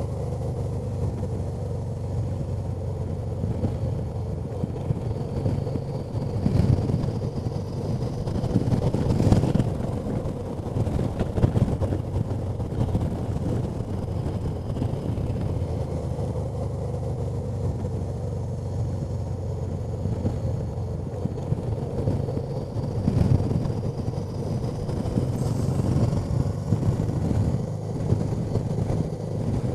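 Honda Deauville NT650V's V-twin engine running steadily while riding, under constant wind noise on the microphone that gusts louder a few times.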